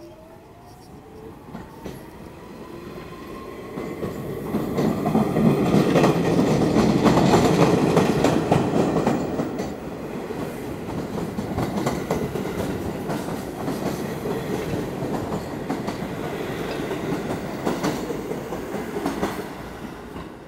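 R46 subway train accelerating out of a station. The traction motors' whine rises in pitch and levels off in the first couple of seconds. Then the cars go by with a loud rumble and quick clicking of wheels over rail joints, loudest about seven seconds in, and carry on steadily as the train pulls away.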